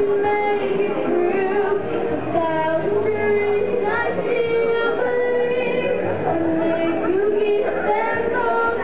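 A young female singer singing into a handheld microphone over a musical accompaniment, holding long notes and gliding between them.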